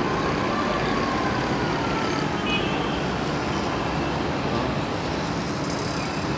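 Steady rumble of city traffic, with a distant emergency-vehicle siren wailing and slowly falling in pitch over the first few seconds.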